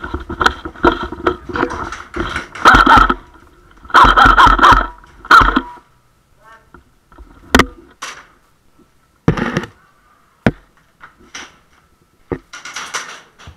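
Airsoft game noise in an enclosed space: clusters of loud bursts and knocks in the first half. Then single sharp cracks come a second or two apart, and a busier stretch returns near the end.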